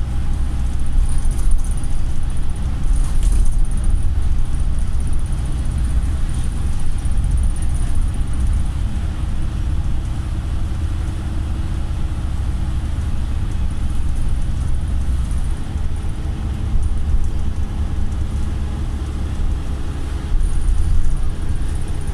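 Volvo MCV Evora single-decker bus heard from inside the passenger cabin while driving: a steady, loud low rumble of engine and road noise, with the engine note shifting slightly about halfway through.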